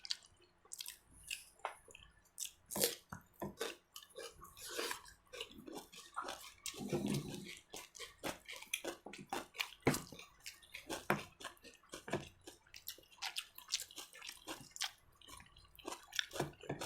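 Close eating sounds: irregular wet chewing, lip smacks and small clicks of food being eaten, with brief louder pops scattered throughout.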